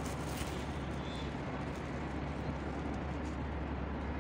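Outdoor city ambience: a steady low hum of road traffic.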